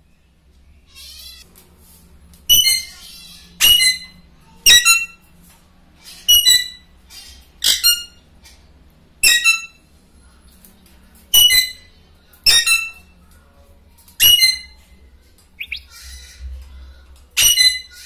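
Alexandrine parakeet calling: about ten loud, short calls, one every second or two.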